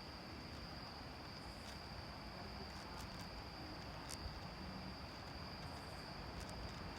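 Crickets chirping in one faint, unbroken high trill, over a low rumble of wind on the microphone.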